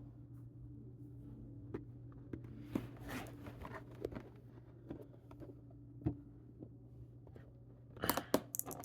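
Cardboard and plastic packaging of a toy-car multipack being handled and worked open, with faint rustles and small clicks. About eight seconds in come louder tearing and crinkling as it comes open.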